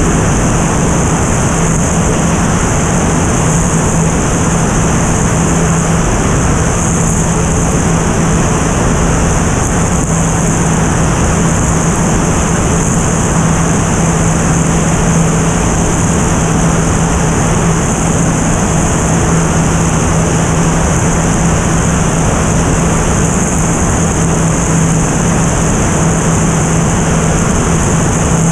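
Single-engine propeller airplane in cruise flight: a steady engine and propeller drone with an even hum, mixed with airflow rushing over the tail-mounted camera's microphone, unchanging throughout.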